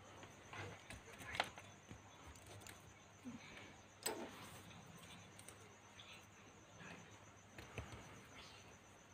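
Near silence: low room noise with a few faint clicks and taps, the sharpest about a second and a half in and another about four seconds in.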